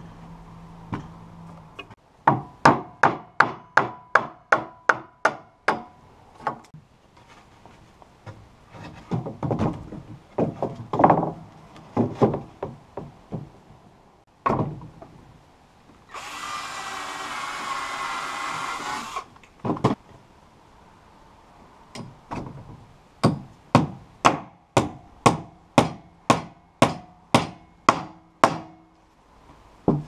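A hammer driving nails into fir floorboards in two quick runs of about a dozen blows each, with a few slower, heavier knocks between them. In the middle a cordless drill runs for about three seconds, boring a pilot hole for a nail.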